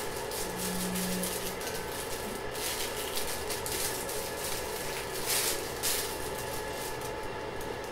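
Rustling and crinkling of a disposable face mask and its wrapper being handled and unfolded, in short bursts over a steady room hiss.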